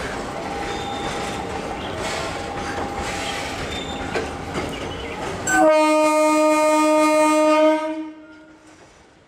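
Steady rumble of a train running on the rails, then about five and a half seconds in one long, loud horn blast from an ICF-built electric multiple unit, held for about two seconds before it stops.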